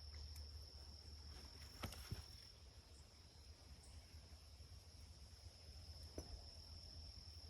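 Faint, steady, high-pitched insect drone, like crickets singing. A few light clicks and taps come about two seconds in and again near six seconds.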